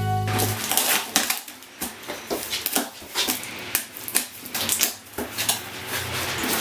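Cardboard box and packing material being opened and handled: irregular crackling rustles and sharp clicks, several a second.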